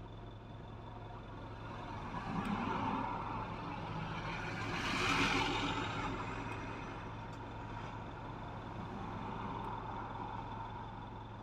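Road traffic: a steady low hum from a car on the road, with other vehicles passing. The loudest pass swells up and fades away about five seconds in, and smaller passes come near the start and around ten seconds in.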